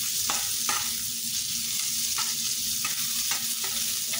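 Sliced onions sizzling in hot oil in a metal frying pan, with a metal spatula scraping across the pan several times as they are stirred.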